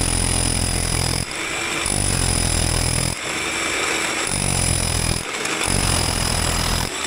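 DeWalt rotary hammer with a core bit hammer-drilling into brick, cutting a vent hole. The drilling is loud and steady, with several short breaks.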